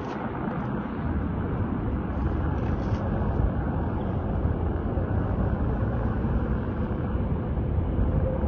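Boeing 737-800's CFM56 jet engines, a steady rumble with a faint steady hum in it.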